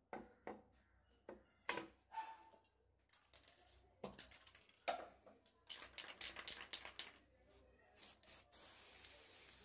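Light knocks and paper rustles as a steel billhook is handled on newspaper, then a quick run of clicks. Near the end a can of black spray paint starts hissing steadily.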